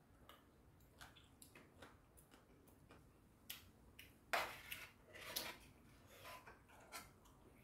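Quiet eating sounds: a metal spoon and chopsticks clicking and scraping against a stainless steel divided tray, with chewing. The louder scrapes come about four and a half and five and a half seconds in, as the spoon scoops rice from the tray.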